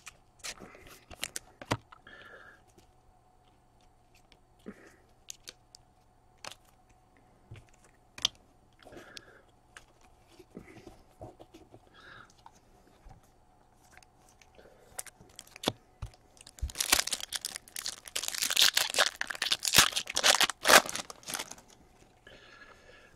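Trading cards being handled, with light taps and rustles, then near the end a few seconds of loud crackling as a foil hockey card pack wrapper is torn open and crumpled.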